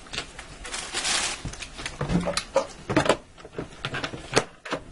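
Lid of an electric pressure cooker being set on and twisted shut to seal it: a sliding scrape about a second in, then several sharp clicks and knocks as it seats.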